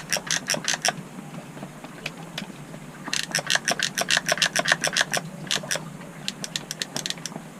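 Trigger-driven solder feed of a Parkside self-feeding soldering iron clicking as it ratchets solder wire through. It comes in runs of rapid, evenly spaced clicks: a short run at the start, a longer run of about two seconds a little after the middle, and shorter runs near the end.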